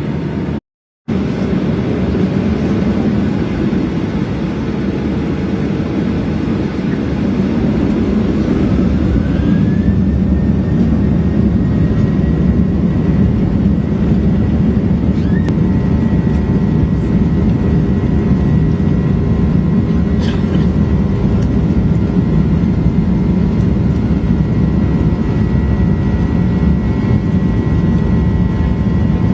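Jet engine noise inside the cabin of a Boeing 737-800, from its CFM56-7B turbofans: a loud steady rumble, with a whine that rises in pitch about a third of the way in and then holds steady.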